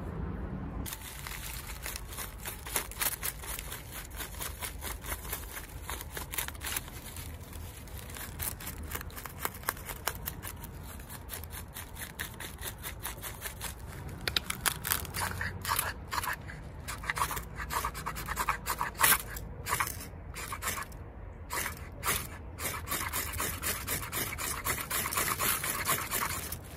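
Knife spine scraped over and over along a ferrocerium (ferro) rod, throwing sparks onto bark tinder, with harder, louder strokes in the middle stretch.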